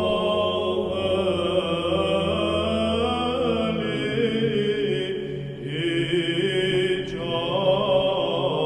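Slow chanted singing over a held low drone note; the drone steps up in pitch about four seconds in.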